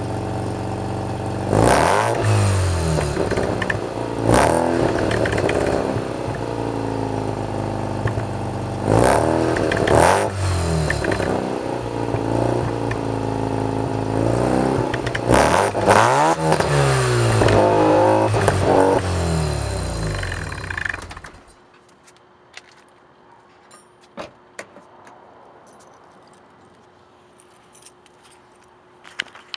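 1987 Mazda RX-7's 13B rotary engine idling through a Pacesetter header, test pipe and Borla cat-back exhaust with its leaks fixed, blipped several times so the note rises and falls. About 21 seconds in the engine cuts off suddenly, leaving only a few faint clicks.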